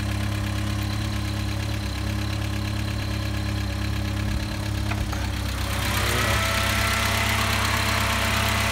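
Talbot Express van engine idling steadily. About five seconds in there is a click, and the engine sound turns louder and brighter as the bonnet is lifted open.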